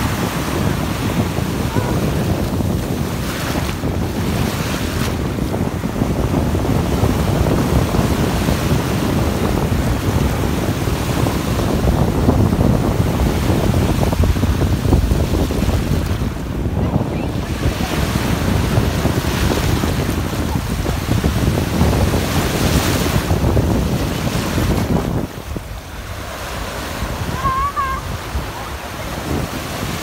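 Sea surf washing in the shallows, with wind buffeting the microphone; the wind noise eases somewhat near the end.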